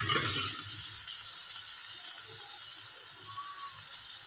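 Green chilli and brinjal curry sizzling in a kadai on the stove: a steady high hiss, with one brief loud clatter right at the start.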